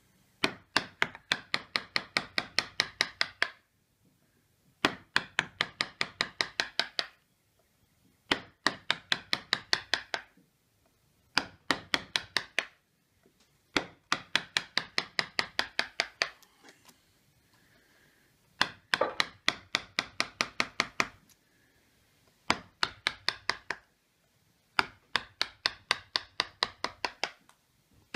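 Steel background punch struck with a small hammer, stippling the recessed ground of a wood carving: runs of sharp, rapid taps, about five a second, each run lasting two to three seconds with short pauses between.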